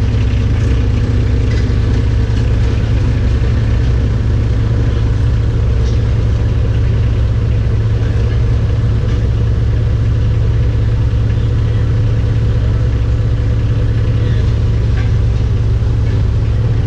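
Cat 304E2 mini excavator's diesel engine running at a steady speed, a loud, even low rumble heard from inside the cab.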